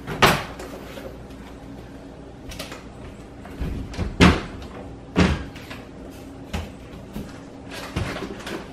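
Kitchen cupboard doors and things being handled, giving a string of sharp knocks and clunks, about six in all, the loudest just after the start and at about four seconds.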